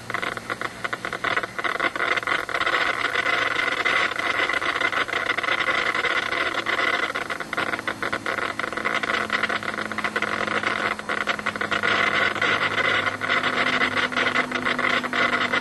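Shortwave radio receiver hissing and buzzing with a dense crackle of rapid clicks: interference from Broadband over Power Lines (BPL) on the HF band.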